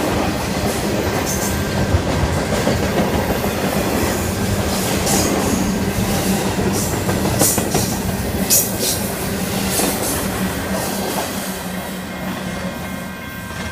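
A Union Pacific train rolling past with a steady rumble, its wheels clacking irregularly over the rails. It grows a little quieter near the end.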